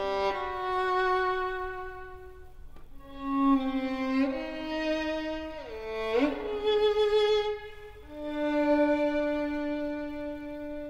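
Solo violin playing slow, held notes, with a slide down and sharply back up about six seconds in, then one long sustained note that slowly fades.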